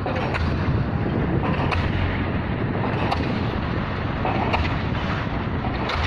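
Hitachi Zaxis 210 excavator running, a steady engine rumble mixed with wind noise on the microphone, with faint ticks about every second and a half.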